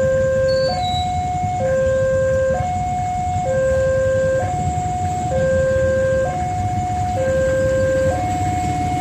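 Railway level-crossing warning alarm sounding a steady two-tone hi-lo signal, the pitch switching about once a second, over a low rumble.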